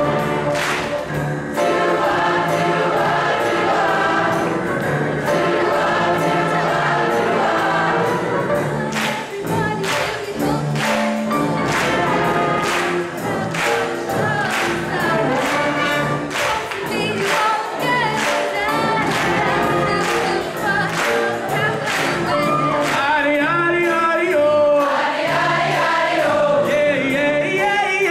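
Large choir singing with brass band accompaniment. A run of sharp drum-like hits comes through the middle, and near the end sustained voices with a wavering vibrato stand out.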